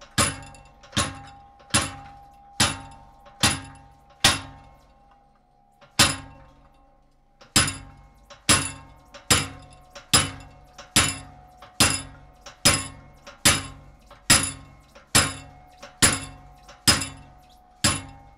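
Treadle hammer driving a handheld cold chisel through cold sheet steel: sharp, ringing metal-on-metal blows at a steady rhythm of about one every 0.8 seconds, with a short break in the strikes about a third of the way through.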